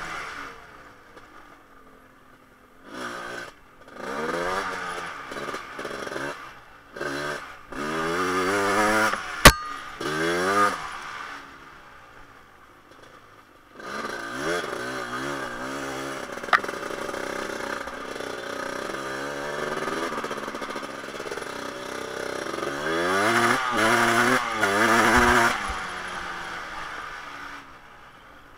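1988 Honda TRX250R's two-stroke single-cylinder engine being ridden, revving up and falling back again and again with quieter stretches off the throttle. A single sharp knock stands out about nine and a half seconds in.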